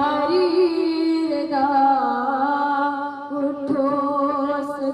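One voice singing a slow melody in long held notes, with no instruments heard.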